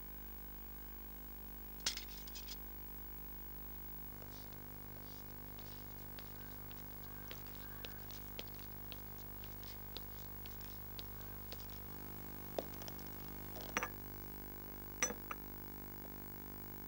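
Low steady electrical mains hum, with many faint scattered clicks and a few louder short knocks, one about two seconds in and three more in the later part.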